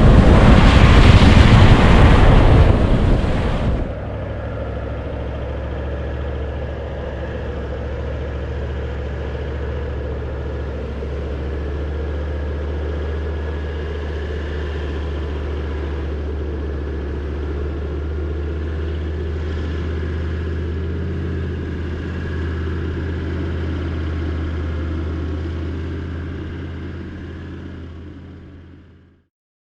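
Loud wind buffeting the microphone for the first few seconds. It cuts to the steady, even drone of a 4WD's engine running at a constant speed, which fades out near the end.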